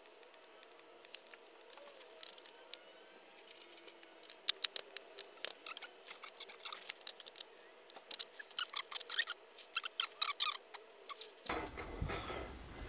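Light metallic clicks and taps of small parts and hand tools being handled while a front wheel is fitted to a motorcycle's forks, bunched around a few seconds in and again near the end.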